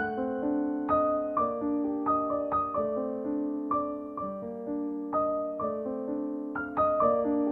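Background piano music: single notes and chords struck about twice a second, each ringing on as the next comes in.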